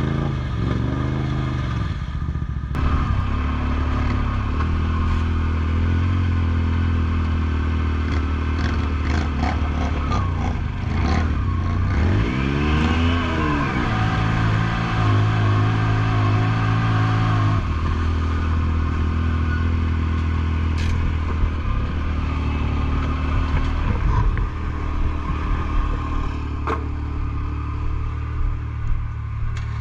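Engine of a Yamaha YXZ 1000R side-by-side, a three-cylinder, driving along a muddy trail. Its note rises and falls once about halfway and steps up and down as it changes gear, with knocks and rattles from the machine over the rough ground.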